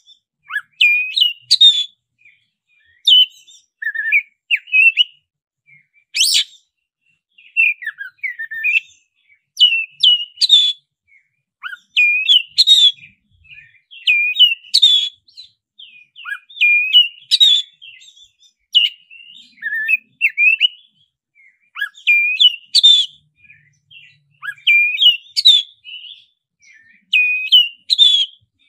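Oriental magpie-robin (black-breasted 'kacer dada hitam' form) singing loudly in rolling phrases of clear whistled notes, many sharply upswept. The phrases come every second or two with short pauses between them.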